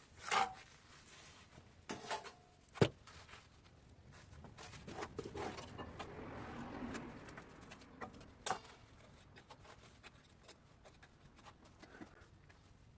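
Bricklaying with a trowel: a few knocks as clinker bricks and the trowel are tapped and set in mortar, the sharpest just under three seconds in, and a soft scraping of mortar in the middle.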